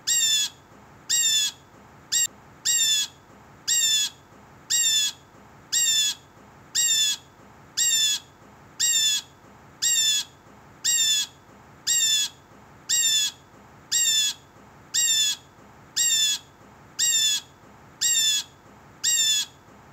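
Blue jay giving its harsh jeer call over and over, one short call about every second at an even, machine-like spacing, with a brief clipped call about two seconds in.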